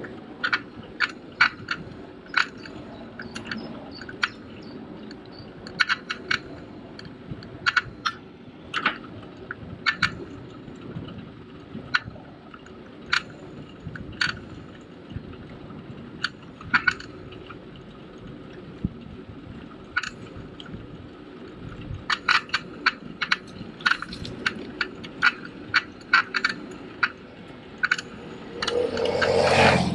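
Folding bike rattling over a paved path: many sharp, irregular metallic clicks and ticks over a steady rolling rumble. A brief, louder rushing swell comes near the end.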